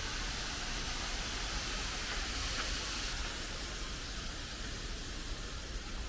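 Rushing water, a steady hiss with a low rumble underneath.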